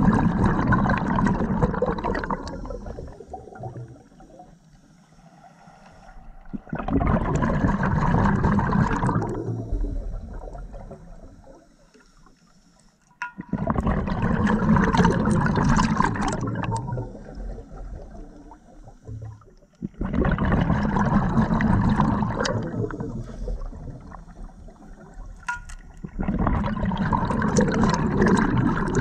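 Scuba diver's regulator exhaust bubbles, underwater: a loud burst of bubbling with each exhalation, about every six or seven seconds, with quieter pauses for each inhalation between.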